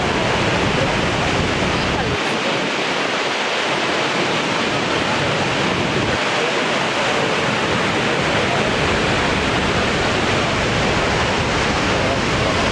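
Steady, loud rush of water from Niagara's Horseshoe Falls plunging into the gorge. A low rumble underneath drops out for a few seconds, about two seconds in.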